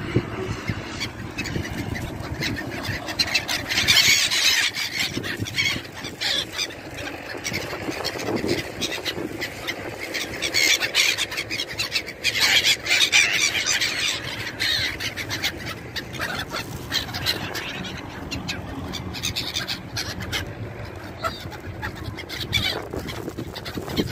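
A flock of gulls calling, with the loudest bursts of calls a few seconds in and again about halfway through.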